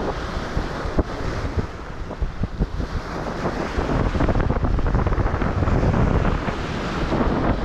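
Strong wind buffeting the microphone over sea waves breaking and splashing against the shore rocks, growing louder about halfway through.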